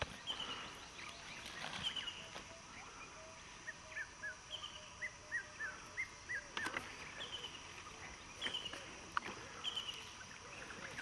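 Wild birds calling in dry bush: one repeats a short high, falling chirp about once a second, while another gives a run of quick rising notes in the middle, over a faint low string of notes. A few soft footsteps on dry leaf litter.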